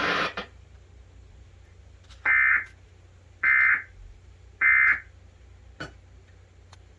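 Emergency Alert System end-of-message signal: three short bursts of digital data warble, evenly spaced about a second apart, marking the end of the alert broadcast.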